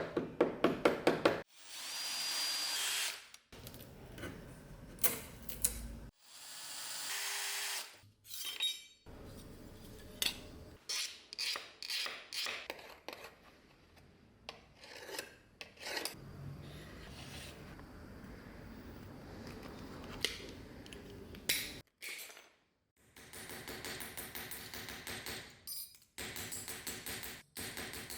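Hand-worked abrasive strokes, such as sanding, filing or scrubbing, on a knife part, heard in short clips that cut abruptly from one to the next. It opens with a quick run of even strokes, and longer rough rubbing passages come later.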